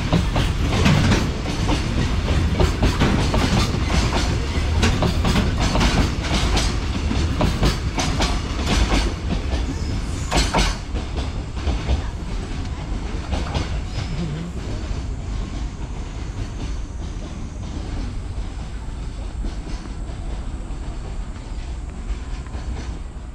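Freight train wagons rolling past, wheels clattering in rapid clicks over the rail joints above a low rumble. After about eleven seconds the clicks thin out and the rumble slowly fades as the end of the train draws away.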